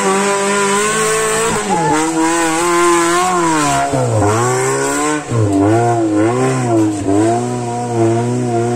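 Off-road 4x4 jeep's engine revving hard while climbing a steep dirt slope. The engine note holds high, then dips and rises again several times in the second half as the throttle is worked under load.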